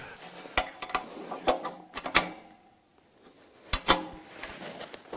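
Metallic clicks and knocks as a rubber wheel is worked off a steel axle on a hoist chassis and refitted: a few in the first two seconds, then a louder pair nearly four seconds in.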